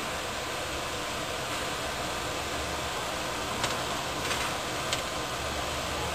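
Steady whirring hiss of a fan, with three faint light clicks past the middle as a cat paws at a pen lying on top of a computer tower.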